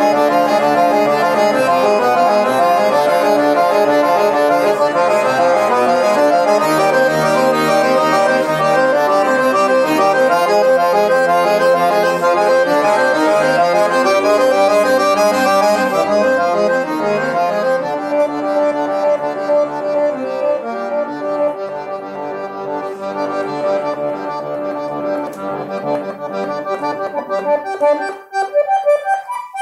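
Zonta bayan (chromatic button accordion) playing dense, sustained chords. It is loud through the first two-thirds and softer from about twenty seconds in, turning to short repeated notes near the end.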